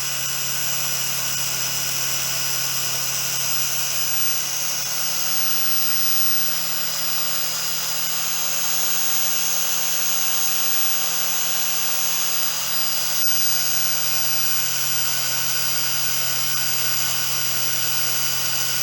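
A quadcopter drone's electric motors and propellers running at a constant speed while held on the ground, giving a steady, even whine.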